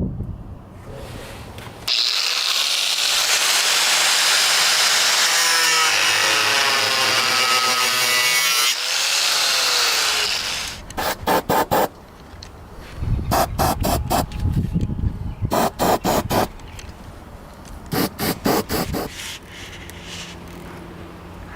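A power tool runs loud and steady for about eight seconds, then stops; after that come four short flurries of rapid knocks.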